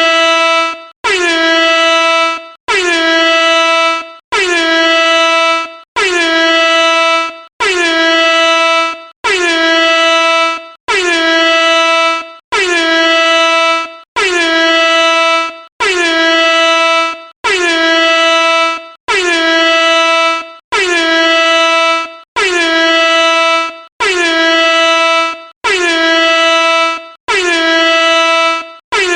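Air horn sounding in a rapid series of identical blasts, about one every second and a half with a brief gap between them. Each blast dips slightly in pitch as it starts, holds one steady tone, then tails off.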